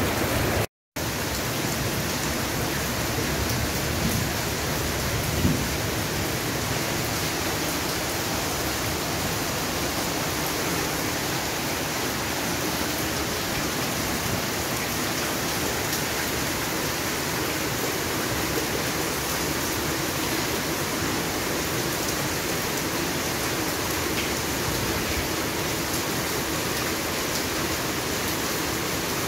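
Steady rain falling, an even hiss with no breaks except a brief cut-out in the sound about a second in.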